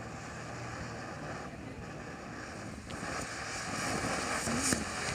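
Flame of Thrones fountain firework spraying sparks with a steady rushing hiss. It grows louder about three seconds in as the fountain throws out bigger bursts, with a sharp crack near the end.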